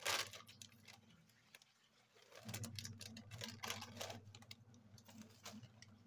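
Pot of lamb broth boiling uncovered on a gas stove, with irregular faint bubbling pops and clicks over a low steady hum. A sharp click sounds at the very start.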